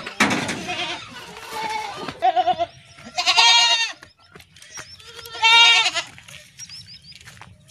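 Goats bleating: two loud, wavering bleats about three and five seconds in, each lasting about a second, with fainter calls between.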